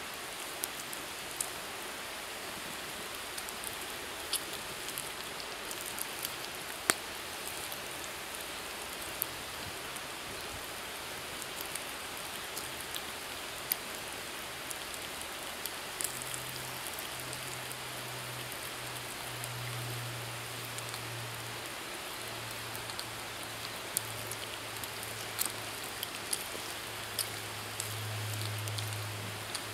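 Bacon and sausages sizzling in a cast iron pan: a steady frying hiss with scattered sharp pops of spitting fat.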